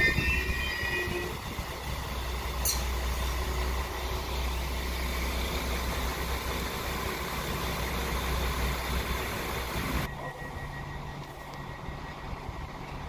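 Abellio regional multiple unit moving slowly through the station: a brief wheel squeal fades in the first second, then a steady low rumble of engine and wheels, with one sharp click a few seconds in. About ten seconds in it cuts off suddenly to quieter station background.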